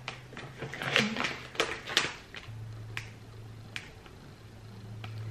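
A resealable plastic pouch crackling and crinkling in the hands as it is tugged at, its zip seal stuck shut: a run of sharp crackles through the first few seconds, with a low steady hum coming in about halfway.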